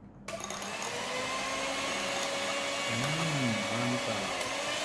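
Electric hand mixer switched on about a third of a second in and running steadily, its beaters whipping instant cappuccino, sugar and hot water in a glass into dalgona foam. Its whine creeps slightly higher in pitch near the end.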